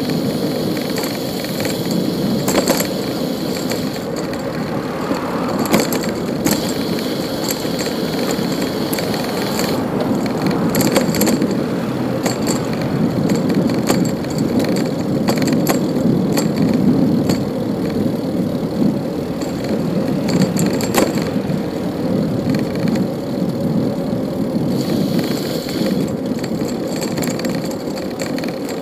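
Bicycle riding on a city street: a steady rolling noise from the tyres on the pavement, with sharp clicks and rattles from the bike several times over bumps, and street traffic mixed in.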